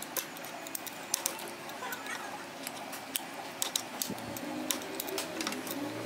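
Scattered light metallic clicks and ticks of a wrench working on bolts as a Yamaha FZ's clutch cover and clutch spring bolts are taken off.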